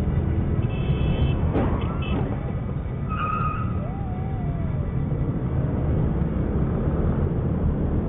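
Road traffic and scooter engines running with a steady low rumble, with a short knock about one and a half seconds in and a brief high tone around three seconds in.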